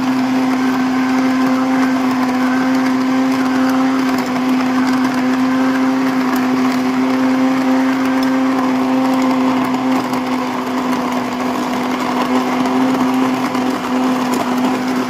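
Electric blender motor running steadily at full speed with a continuous hum. It is whirling a mango milkshake of mango, milk and ice into a vortex in the jug.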